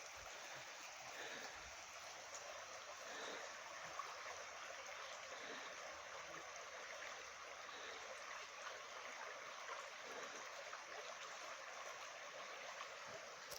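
A small stream running steadily, a faint, even rush of flowing water.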